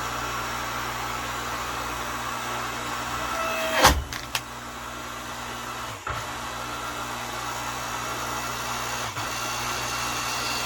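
Earthquake 5-ton electric log splitter running, its electric motor and hydraulic pump humming steadily as the ram drives a log into the wedge. A single loud crack about four seconds in as the wood splits, and the motor cuts out briefly and restarts about six seconds in as the operating button is let go.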